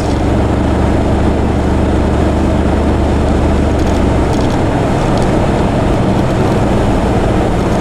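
Road vehicle driving, a steady engine and road rumble; the deepest part of the rumble eases about four seconds in.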